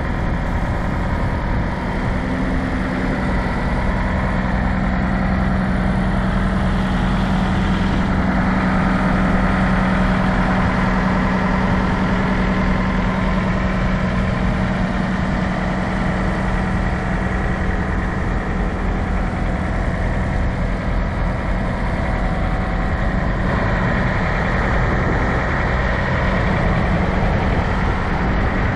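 A semi truck's diesel engine idling steadily, a constant even hum.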